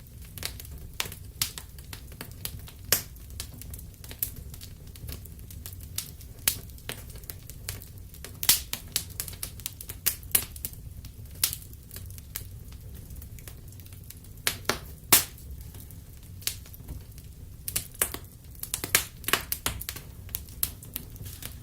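Wood fire in a fireplace crackling, with irregular sharp pops and snaps over a steady low rumble. The pops come in clusters, and the loudest one falls about fifteen seconds in.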